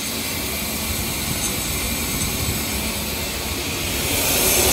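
Compressed natural gas rushing from a CNG dispenser through the fuel hose into a vehicle's tanks: a steady, high hiss that grows louder near the end. The fill is mid-way, with tank pressure climbing past about 1,800 psi toward a full 3,600 psi.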